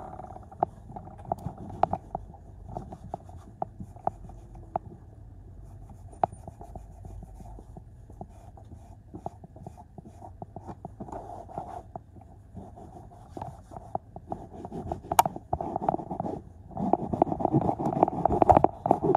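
A cloth rubbing and scrubbing a car's floor carpet and door sill, with scattered light taps and knocks. The scrubbing gets louder near the end.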